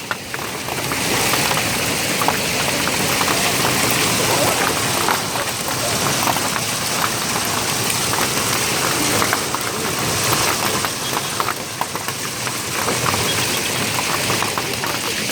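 Heavy hail falling: a dense, steady hiss of hailstones, with many sharp ticks and cracks as individual stones strike hard surfaces.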